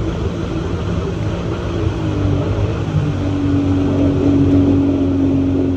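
Jet ski engine running steadily while under way on the water; its note drops a little about two seconds in, then holds steady.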